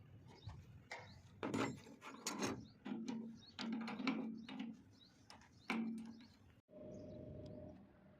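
Scattered clicks, knocks and clinks of hand tools on metal as nuts, bolts and screws are undone on an air-conditioning unit's blower housing, with a faint steady hum near the end.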